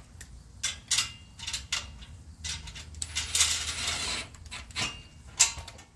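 Metal clinks and knocks as an exhaust tip is shifted and twisted by hand on the tailpipe, with a longer scraping rub of metal on metal about three seconds in and a sharp clink near the end.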